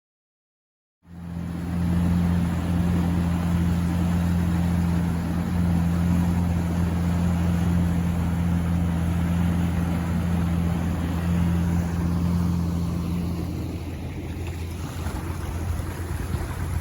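After a second of silence, a jet ski engine runs steadily at speed, with a low, even hum over a rush of wind and water. Near the end the engine note drops back a little.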